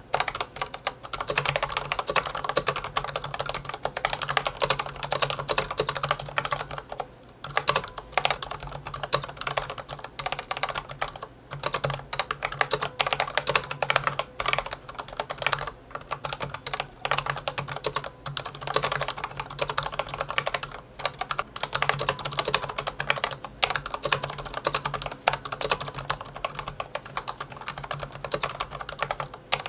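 Typing test on a Corsair K60 PRO RGB SE mechanical keyboard with Cherry Viola linear switches and doubleshot PBT keycaps: fast, continuous keystrokes with a few short pauses. The reviewer finds the case resonance (hollow ping) heavy, worse than the K70's.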